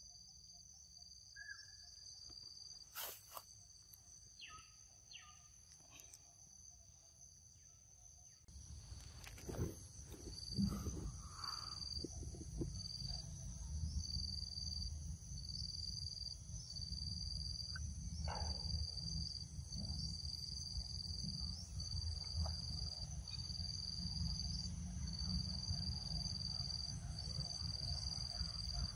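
Insect chorus in the forest: a steady high-pitched drone with a second, pulsing chirp about once a second from around halfway. A low rumble comes in about a third of the way through, with a few faint clicks.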